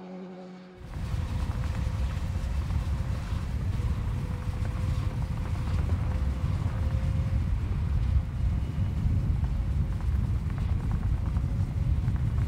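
BMW S 1000 R motorcycle: a steady engine note fades out in the first second. Then, after an abrupt change, a rough, steady low rumble with noise runs on without a clear engine pitch.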